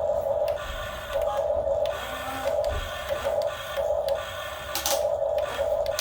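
RC excavator's small electric motors and gearboxes whirring in a run of short bursts, starting and stopping every half second or so as its controls are worked, with a sharp click about five seconds in.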